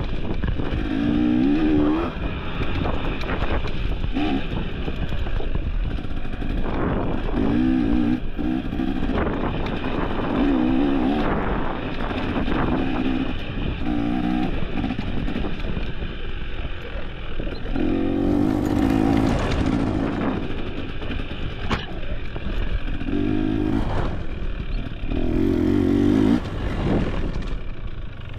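Off-road dirt bike engine revving up and down over and over as the rider works the throttle along a tight trail, with a few sharp knocks along the way.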